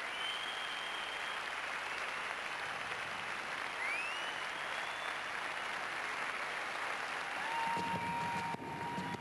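Audience applauding steadily, with a few high whistled notes rising and holding over the clapping.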